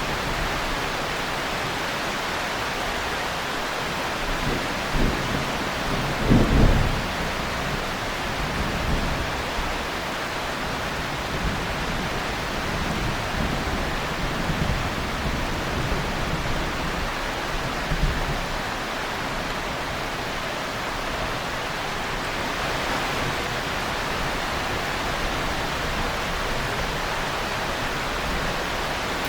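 Heavy rain falling in a steady hiss, with thunder rumbling underneath: a strong roll about six seconds in and fainter rumbles later.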